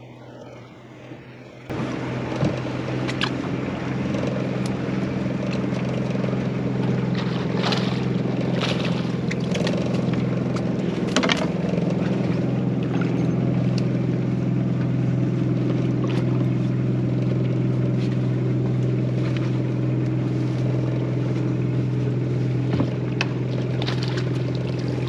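Small fishing boat's outboard motor running steadily under way. It starts abruptly about two seconds in, with occasional sharp knocks over it.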